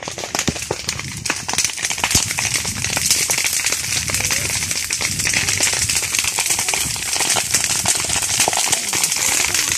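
Grass and brush fire crackling: a dense run of small pops over a hiss that grows louder about three seconds in.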